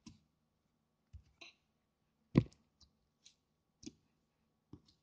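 Green slime being squished and kneaded by hand, giving scattered short wet clicks and pops, about eight in all. The loudest is a sharp snap a little past halfway.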